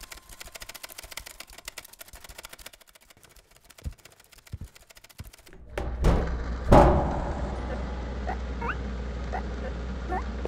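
Rapid dense mechanical ticking and clicking, with two low thumps near the middle, then two heavy knocks about six and seven seconds in, the second the loudest. A steady low machine hum follows, with short rising squeaks about twice a second.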